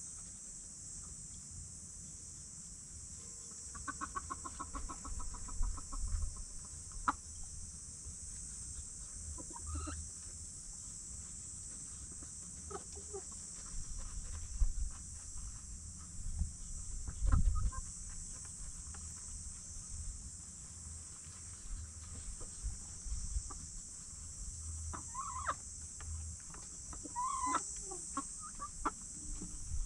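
Chickens clucking now and then as they feed, with scattered short clicks and low knocks of pecking and scratching, over a steady high hiss.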